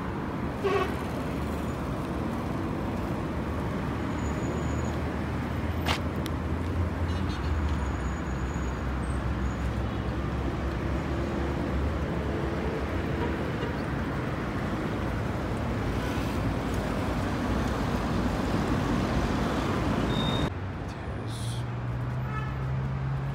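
City street traffic ambience: a steady wash of vehicle noise with a low engine hum. About twenty seconds in it changes abruptly to a quieter street with a steady low hum.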